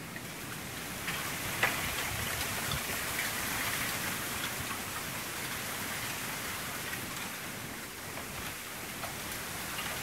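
Gusts of wind rustling the leaves at the top of a bamboo stand: a rain-like hiss that swells about a second in and eases around eight seconds. A single sharp tick sounds at about a second and a half.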